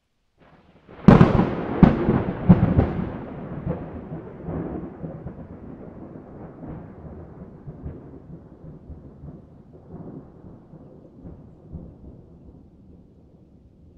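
Thunder from a nearby lightning strike: a sharp crack about a second in, several more cracks close behind it, then a long rumble that slowly fades.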